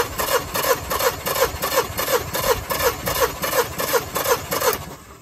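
Electric starter cranking a Yamaha 150 four-stroke, four-cylinder outboard with its spark plugs removed for a compression test: an even, rhythmic churning at about four pulses a second, each with a short falling whine. The engine does not fire, and the cranking stops near the end.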